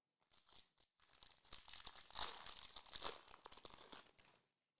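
Foil wrapper of a Prizm basketball hobby card pack being torn open and crinkled in the hands. It is a dense crackling that runs for about four seconds and is loudest in the middle.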